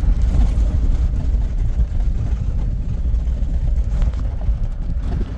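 Sprinter van driving, with a steady low engine and road rumble that drops away sharply at the very end.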